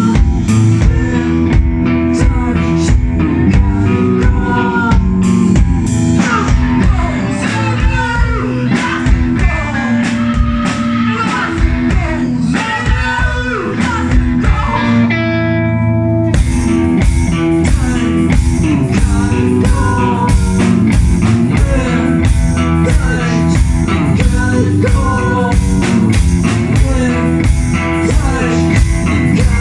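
Rock band music with guitar and a drum kit keeping a steady beat. About halfway through, the sound thins out for a moment, then the full band comes back in.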